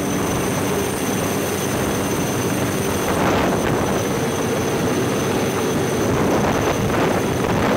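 Indian Navy helicopter hovering overhead for a winch rescue hoist: loud, steady rotor and engine noise.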